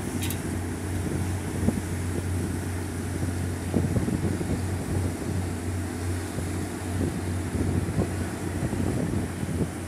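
Steady low drone of a ship's diesel engine, with gusts of wind buffeting the microphone.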